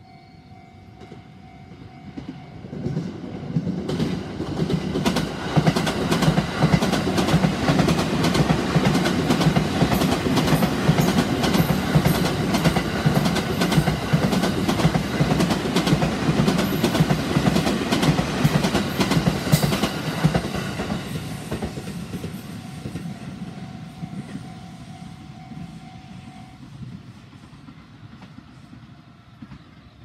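Level-crossing warning bell ringing steadily. Then the 285-series Sunrise Izumo sleeper express passes at speed for about eighteen seconds, its wheels clattering over the rail joints and drowning out the bell. As the train fades, the bell is heard again and stops a few seconds later.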